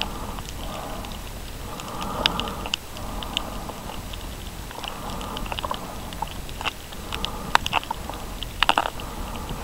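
Underwater recording of a diver's breathing: muffled swells of hiss come and go every second or two. Scattered sharp clicks and crackles run through it, loudest and densest near the end.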